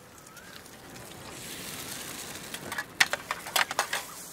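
Metal spatulas clacking against a wok in a quick, irregular run of strikes in the second half, over a faint frying sizzle.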